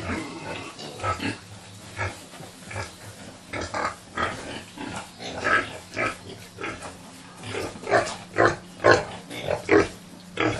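Domestic pigs in their pens calling in a run of short grunts. The calls come louder and closer together in the second half, about two a second near the end.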